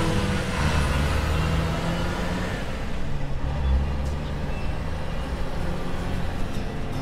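Truck engine running steadily at a low pitch, a sound effect dubbed over a plastic toy dump truck being pushed by hand.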